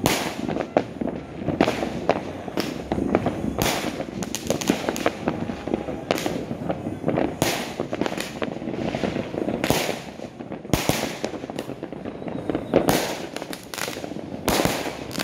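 Many fireworks exploding at once: an irregular string of sharp bangs over a constant crackling, with a cluster of louder bangs near the end.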